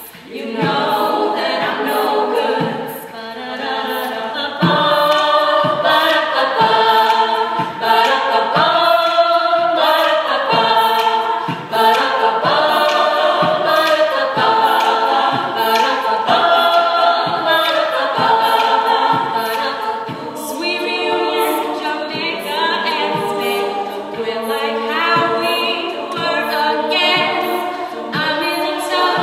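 An all-female a cappella group singing, a solo voice over backing voices, with vocal percussion keeping a steady beat.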